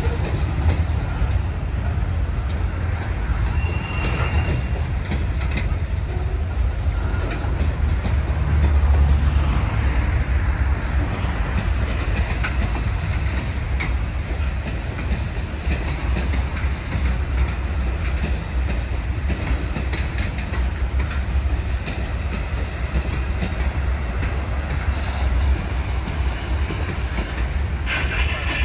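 Freight train of hopper cars rolling past at steady speed: a continuous low rumble of steel wheels on the rails.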